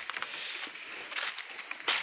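Rainforest ambience: a steady high-pitched insect drone, with faint footsteps and rustling on leaf litter and one sharp click near the end.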